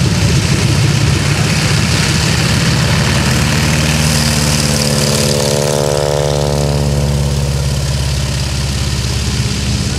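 Radial engine of a Waco biplane running at low taxi power as the plane rolls past close by, a steady low engine note whose pitch glides as it passes about six seconds in.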